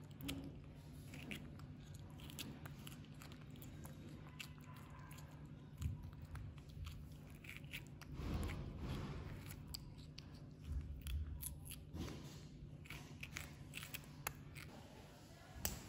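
Baby macaque biting and chewing a raw green vegetable: a scatter of small, crisp crunching clicks from its bites, with a steady low hum underneath.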